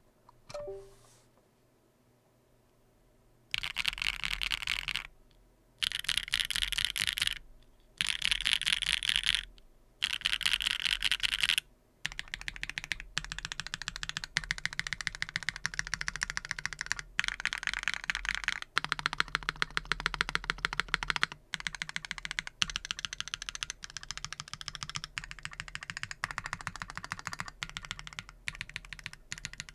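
Mechanical keyboard with factory-lubed WingTree Yunie linear switches in an aluminum plate with no foam, under GMK keycaps, being typed on. Four short bursts of rapid keystrokes start about four seconds in, and steady continuous typing follows from about twelve seconds in.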